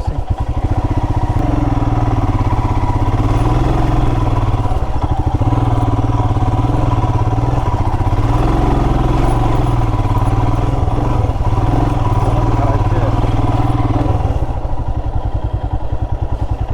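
Royal Enfield Himalayan's single-cylinder engine running under way, its pitch rising and falling a few times with the throttle.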